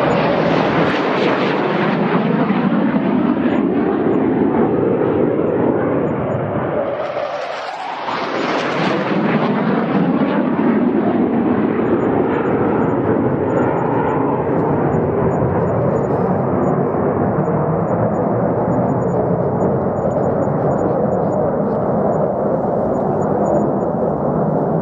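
Fighter jets flying past: a continuous loud jet-engine roar that thins briefly about seven seconds in, then surges again.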